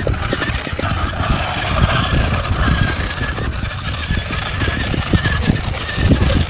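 Radio-controlled model truck running: a steady high whine with irregular low rumbling and knocks underneath.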